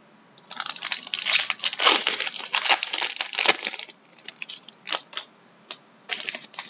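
Foil wrapper of an Upper Deck Ultimate hockey card pack being torn open and crinkled, a dense run of crackling from about half a second in until nearly four seconds. After that come a few short clicks and rustles as the cards are handled.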